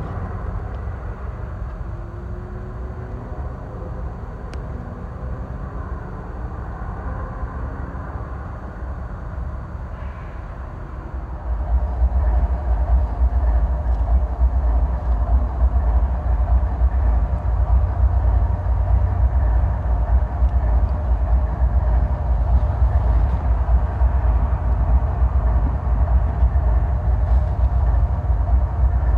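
Steady train rumble that jumps up about eleven seconds in to a much louder, steady low rumble of Norfolk Southern diesel locomotives hauling a container train.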